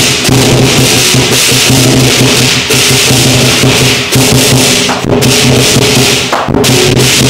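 Chinese lion dance percussion: a big drum beaten under continuous crashing cymbals, loud and unbroken.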